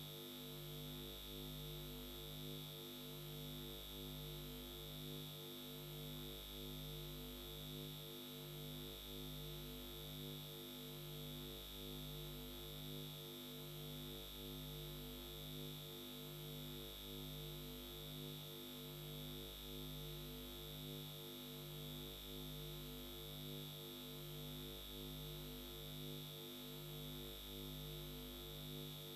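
Faint steady electronic drone: several low tones pulsing at an even, rapid rate over a constant high whine and a low hum that dips every few seconds.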